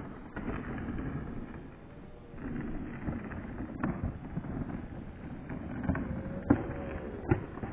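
Rumbling, wind-like noise on a phone microphone held close, with a few sharp handling knocks.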